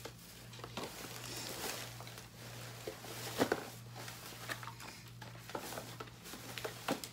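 Plastic bag and candy wrappers rustling and crinkling as hands sort through them, with a few sharper crinkles, the strongest about three and a half seconds in, over a steady low hum.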